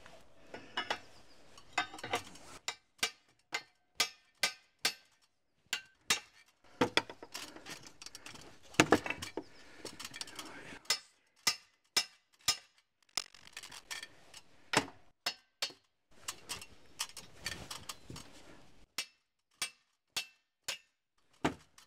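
Sledgehammer blows on steel, some thirty sharp ringing strikes at roughly two a second with short pauses, hammering a snug-fitting part of the grapple coupling into place.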